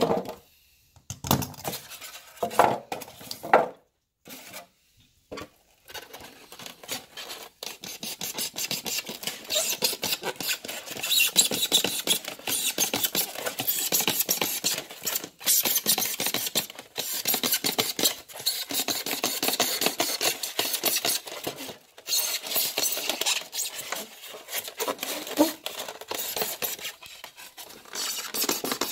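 Utility knife blade cutting and scraping through a styrofoam cooler lid: a few separate short scrapes at first, then nearly continuous rapid rasping from about six seconds in, with brief pauses between strokes.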